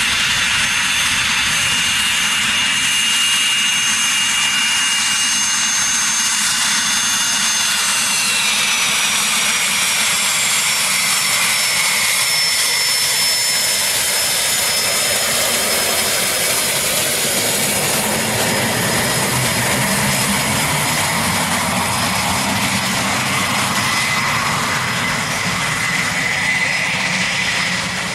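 Cessna CitationJet CJ1's twin Williams FJ44 turbofans whining steadily as the jet rolls past on the ground. The high whine drops in pitch about eight to twelve seconds in as the jet goes by, and the sound eases slightly as it moves away.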